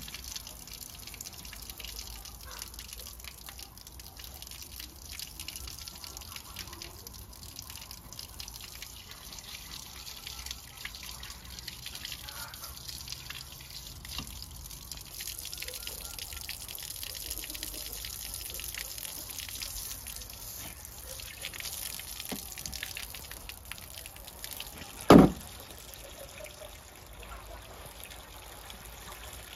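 Water dripping and trickling steadily, with many small irregular drips. A single sharp knock about 25 seconds in is the loudest sound.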